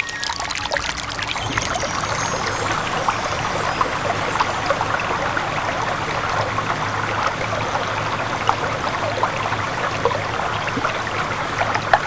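Mountain stream running: a steady rush of water with many small splashes and gurgles.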